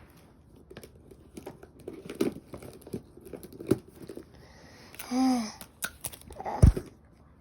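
Paper and sticky tape crinkling and tearing as a small package is handled and taped back up, with a short hum about five seconds in and a sharp knock near the end.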